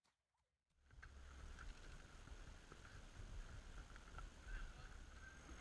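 Near silence: a faint, steady low rumble of outdoor ambience begins about a second in.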